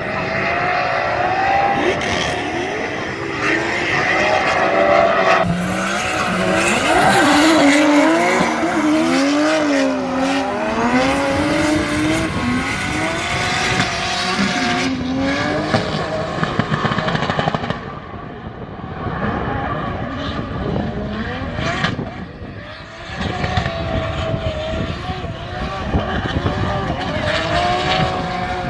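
Drift cars sliding in tandem: engines revving hard, their pitch rising and falling again and again as the throttle is worked, over tyre squeal. Loudest about seven to nine seconds in, easing off for a moment around eighteen and twenty-two seconds.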